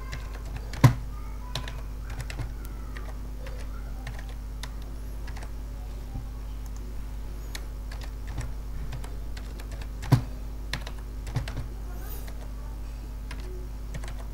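Typing on a computer keyboard: scattered light key clicks, with two louder clicks about a second in and about ten seconds in, over a steady low hum.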